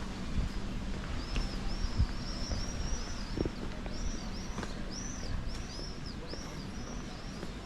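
Small birds chirping: a quick run of short, high, arched chirps over low street background noise, with a few soft thumps.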